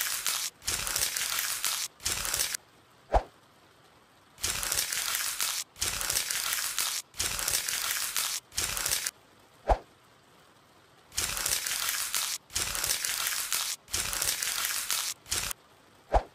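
Crunchy scraping sound effect: runs of three or four dry, crackling strokes about a second long each, each run closed by a single sharp tap, then a pause of about a second before the next run. The strokes go with a knife scraping a mass of bugs off skin.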